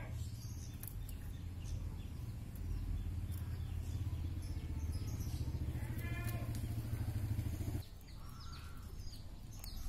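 An engine idling with a steady low hum, cutting off suddenly about eight seconds in. A brief higher call is heard about six seconds in.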